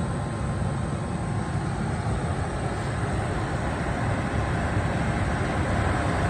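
Goodman furnace blower running, a steady whooshing rumble of motor and moving air with no separate knocks.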